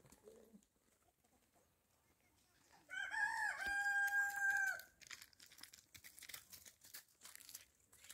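A rooster crowing once, about three seconds in: a couple of short notes running into a long held note that drops away at the end, about two seconds in all. Faint scattered ticks and rustles follow.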